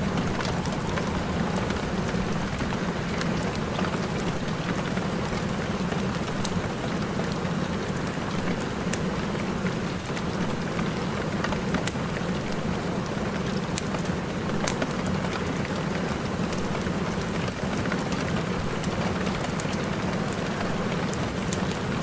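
Steady rain with many small scattered droplet ticks, a continuous even hiss that never lets up.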